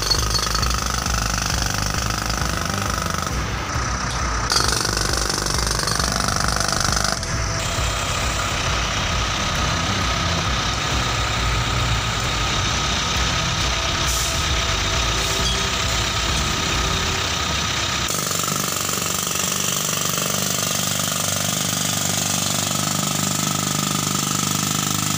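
TOKU TPB-60 pneumatic breaker (air jackhammer) hammering rapidly and continuously as it breaks up concrete pavement. The sound changes abruptly at several shot changes, and the deep pounding drops away for the last several seconds.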